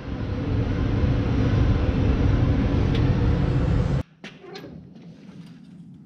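New Holland tractor engine running steadily under load, heard from inside the cab as a dense low drone while the tractor drives across a field. About four seconds in it cuts off suddenly, leaving a much quieter stretch with a few light clicks and knocks.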